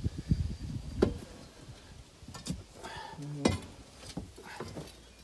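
A few sharp clanks of steel pry bars working against a heavy machine's steel track, with low scraping and rumbling between them.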